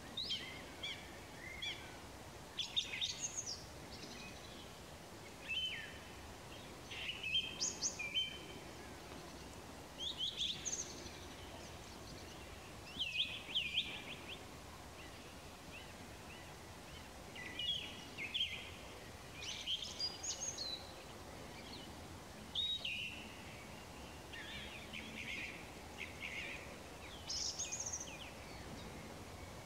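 Evening songbirds singing: short, high, quick phrases repeated every two or three seconds over faint background noise.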